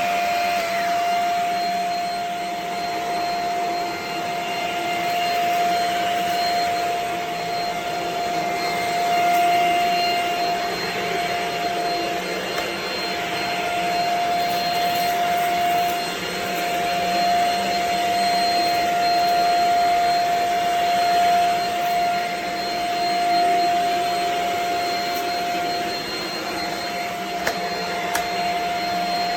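Shark HV322 Rocket corded stick vacuum running steadily, a continuous motor noise with a whine on top that swells and eases slightly in loudness.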